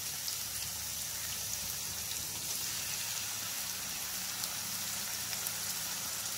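Masala-coated paneer pieces shallow-frying in hot oil in a nonstick pan: a steady sizzle with fine crackling pops.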